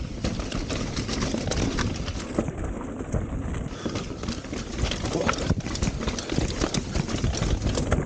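Mountain bike riding fast down a loose dirt and rock trail: tyres crunching over the ground with many small knocks and rattles from the bike as it bounces, over a steady low rumble.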